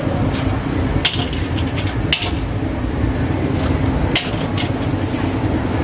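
Cooking utensils, a wire strainer and long chopsticks, give a few sharp clicks and knocks against the frying pan and the steel draining wok over a steady low background rumble.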